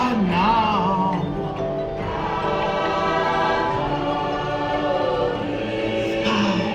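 Music with a choir singing, voices holding long notes over a sustained backing, one voice wavering near the start and another gliding down partway through.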